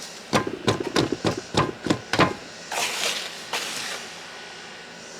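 A form full of wet mortar knocked repeatedly against a hard surface to level and settle the mix: about seven quick knocks over the first two seconds, then a short scraping sound.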